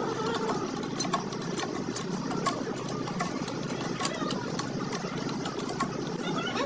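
A motor running steadily, with frequent sharp metallic clicks and taps over it.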